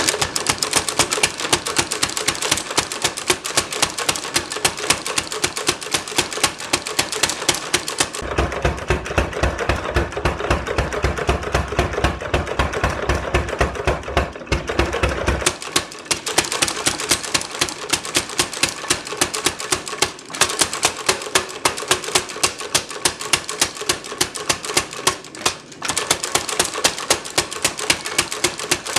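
Power hammer striking hot steel in a rapid, even rhythm of blows, tapering one end down. For several seconds in the middle the blows carry a deeper, heavier thud.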